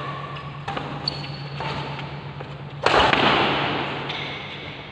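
Badminton rackets striking a shuttlecock during a rally, a string of sharp hits echoing in a large hall; the loudest, about three seconds in, rings on for over a second. A steady low hum runs underneath.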